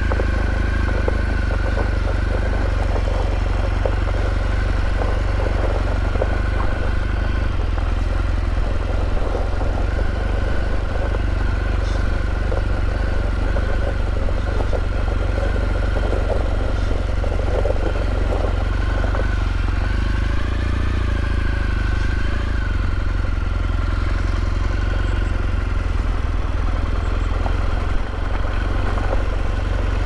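A motorcycle running steadily under way: a low, even engine drone with a thin steady whine above it.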